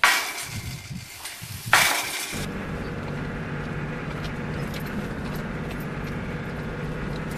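A four-wheel drive running along a rough dirt track, its engine and tyres giving a steady drone heard from inside the vehicle. This is preceded by about two seconds of harsh noise, with a second short loud burst just before the drone settles in.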